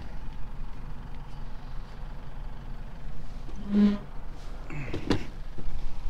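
Hands working around a parked Honda quad bike's engine bay in search of the dipstick: a sharp click a little after five seconds in, a short hum just before it, over a steady low rumble.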